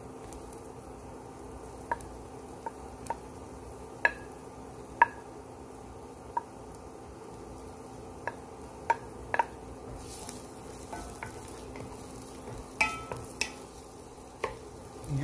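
Chopped garlic frying in olive oil in a nonstick pot, a faint steady sizzle. Over it come a dozen or so sharp taps of a wooden spatula against the plate and the pot as the garlic is scraped in and stirred.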